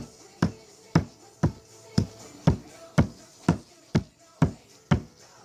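Sharp taps or knocks repeating evenly, about two a second.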